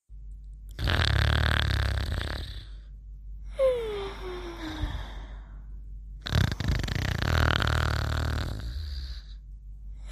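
Snoring: two loud snores with a deep rumble. Each is followed by a thin whistle that slides down in pitch over about a second.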